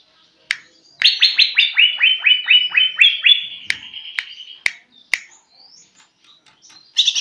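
Caged cucak ijo (green leafbird) singing, a bird still learning its song. About a second in comes a rapid run of a dozen or so short downslurred chirps lasting about two and a half seconds, then a few separate sharp notes, and a new fast run starts right at the end.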